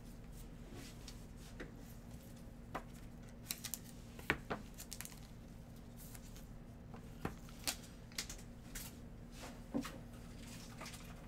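A dozen or so faint, scattered clicks and taps of a trading card in a clear plastic holder being handled with nitrile-gloved hands and set down on a table, over a low steady hum.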